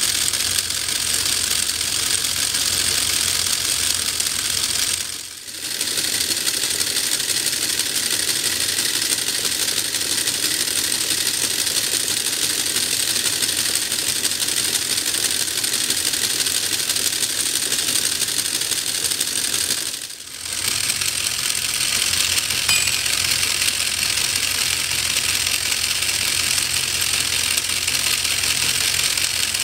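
Lego Technic V10 engine model turned by a single Power Functions M motor: plastic pistons, crankshaft and gears clattering in a fast, steady rattle. The sound dips away briefly twice, about five seconds and about twenty seconds in.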